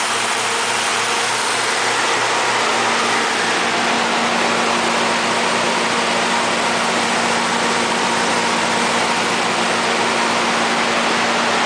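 Ingersoll Rand N80 natural gas generator set's GM Vortec 8.1L V8 engine running at a constant speed, with a steady hum.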